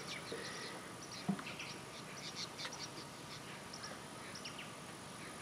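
Insects and birds chirping: many short scattered chirps over a steady high-pitched insect whine, with one soft knock about a second in.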